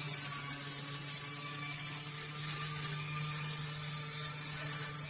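Sewing-machine motor of a homemade grass cutter running at a steady speed, a constant whir with a high hiss.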